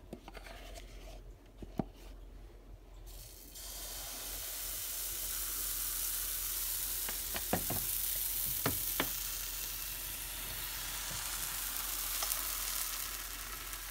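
Pancake batter poured into a hot frying pan greased with margarine starts sizzling about three and a half seconds in and sizzles steadily on. A few light clicks and taps come before the sizzle and a few more during it.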